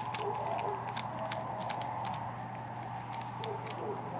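Scattered light clicks and taps of small metal bolts and mounting hardware being handled, over a steady low hum.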